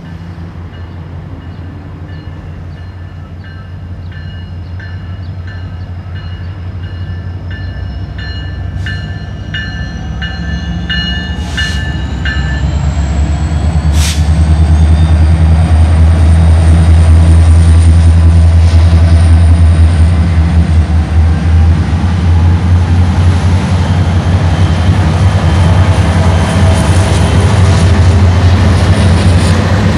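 Norfolk Southern freight train led by SD70M-2 and SD70 diesel-electric locomotives approaching and passing close by. The deep drone of the engines builds and is loudest from about halfway on, as the lead units and then the trailing C40-9W units go by, with wheel and rail noise. A bell rings at about one and a half strokes a second and stops about twelve seconds in, and a high whine rises slowly in pitch.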